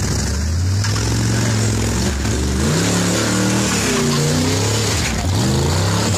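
Engine of a small competition 4WD revving up and down in repeated blips under load as it climbs a steep, muddy gully, its pitch rising and falling every second or so.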